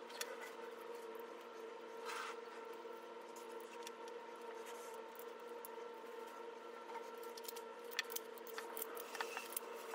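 Faint clicks and scrapes of small pistol parts, a rail, screws and an Allen key, being handled, over a steady hum.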